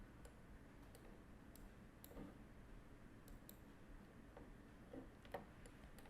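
Faint, scattered computer mouse clicks, about ten of them at uneven intervals, over near silence with a low room hum.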